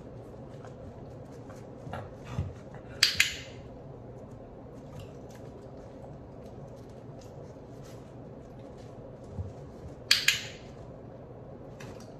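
A training clicker clicked twice, about seven seconds apart, each a sharp double click marking the dog's head dip. A soft thump comes shortly before each click.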